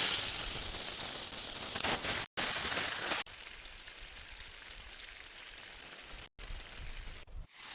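Steady hiss of rain falling, in several clips joined by abrupt cuts: louder for the first three seconds or so, then quieter and thinner.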